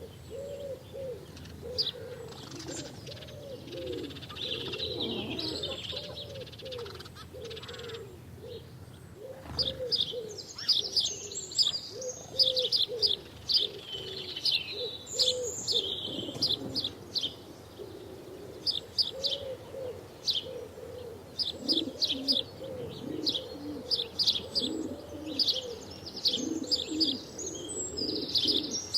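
House sparrows chirping in short repeated notes, sparse at first and busier from about a third of the way in. A second, much lower repeated call runs steadily underneath.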